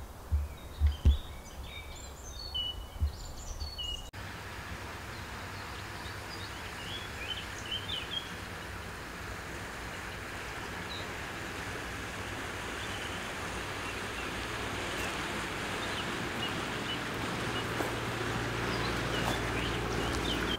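Small birds chirping over open-air background noise, with a few low thumps at the start. After a cut about four seconds in, a steady rushing noise slowly grows louder, with more scattered chirps.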